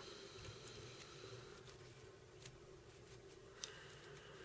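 Near silence: a faint steady hum with a few small clicks and rustles of fingers handling tinsel and thread at the fly-tying vise.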